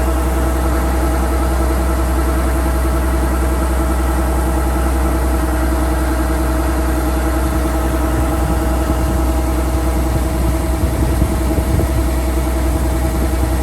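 Kubota DC-105X combine harvester's diesel engine running steadily with a deep rumble, a little uneven for a moment near the end.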